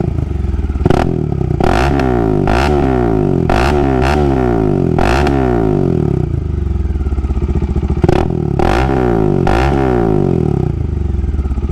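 Bajaj Dominar's single-cylinder engine running through an aftermarket exhaust with the dB killer removed, revved in a series of sharp throttle blips, each rising and falling back to idle, with a steadier stretch in the middle. Loud throughout.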